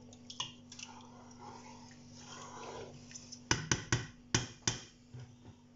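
Soft stirring in a pan of stew, then about six sharp knocks in quick succession about three and a half seconds in, a wooden spoon striking the pan. A faint steady hum runs underneath.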